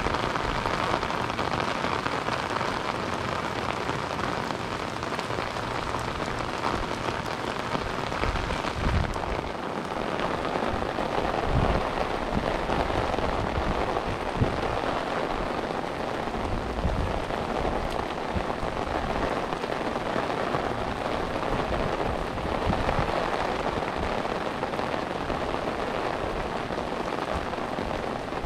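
Steady rain falling and pattering on surfaces, with a few brief low rumbles in the middle.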